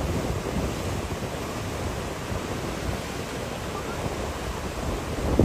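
Steady rushing noise of wind gusting across the microphone over the surf of the sea.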